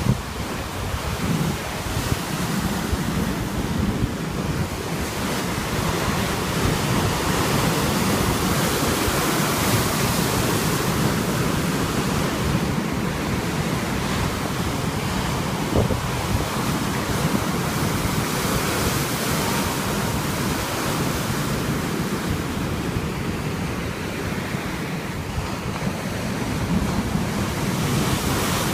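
Sea waves washing onto the shore, a continuous surf that swells and eases slowly, with wind buffeting the microphone as a gusty low rumble underneath.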